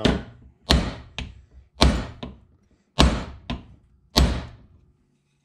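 Hammer striking a wooden block laid over a motorized-bike clutch basket, press-fitting a part into the basket: about eight sharp knocks, mostly in pairs about half a second apart, that stop about a second before the end.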